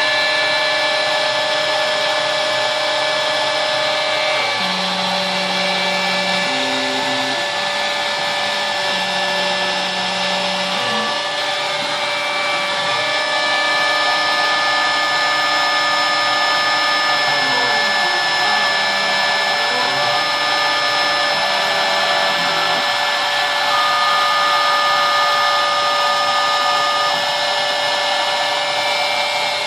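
Router motor running steadily on a homemade drawer-slide CNC machine as it carves lettering into a wooden sign, with the stepper motors' tones stepping between pitches and gliding up and down as the axes move.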